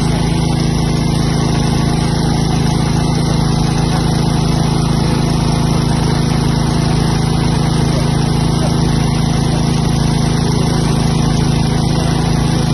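Small engine running steadily at constant speed, driving the hydraulic pump for a rescue cutter: an even, unbroken low drone.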